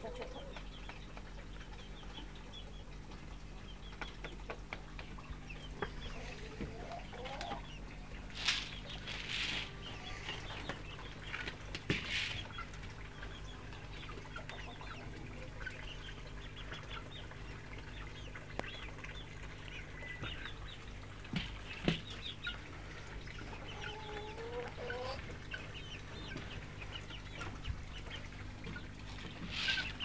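Domestic hens clucking and calling now and then, with a few short scuffling noises around the middle and a couple of sharp clicks later, over a steady low hum.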